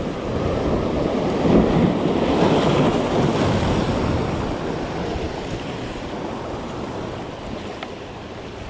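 Ocean surf breaking and washing against shoreline rocks, swelling about a second in and slowly dying away, with wind buffeting the microphone.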